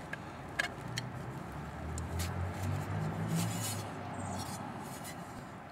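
A few light clicks and knocks as the sump pump is handled, over a low rumble that swells about a second in and fades away after the middle.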